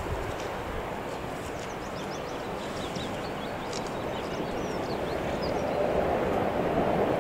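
Small birds chirping and singing in quick short phrases, over a steady low outdoor rumble that grows louder toward the end.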